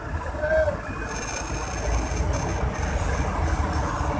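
Steady street traffic noise with a low rumble.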